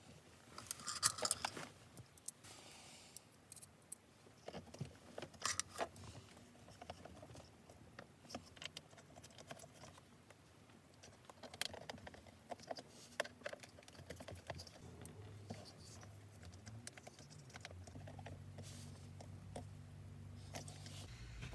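Irregular small clicks, taps and rattles of the plastic pieces of a car's center console armrest being handled and fitted together by hand. A low steady hum comes in about fifteen seconds in and grows a little toward the end.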